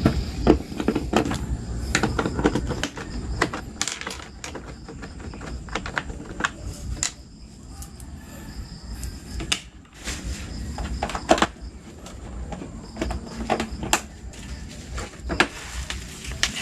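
Irregular clicks, taps and knocks of hand work with a Phillips screwdriver, removing the screws and engine cover of a scooter.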